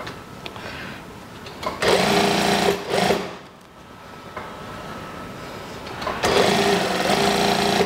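Brother industrial lockstitch sewing machine stitching a seam in two runs, about two seconds in and again about six seconds in, each lasting about a second and a half.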